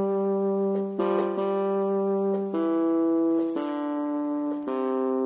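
Small electronic keyboard being pawed by a dog: steady held notes, several sounding at once, that switch abruptly and unevenly about once a second as different keys go down.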